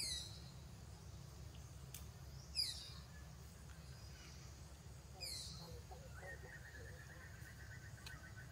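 A bird calling: short, high, sharply falling notes repeated about every two and a half seconds, with a faint pulsing trill joining from about six seconds in, over a low steady background hum.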